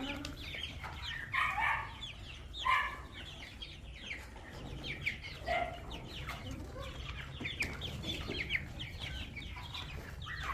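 A flock of young chickens clucking and peeping, many short, high, falling calls overlapping, with a few louder clucks now and then.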